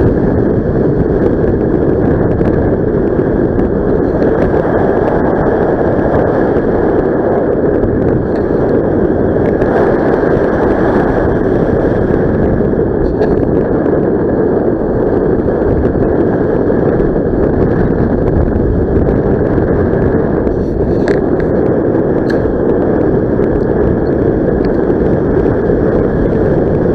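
Steady rush of wind buffeting the microphone during paraglider flight, a loud even noise mostly in the low and middle range, with no engine tone.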